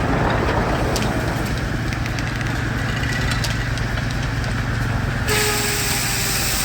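Steam traction engine running at a steady, rapid beat.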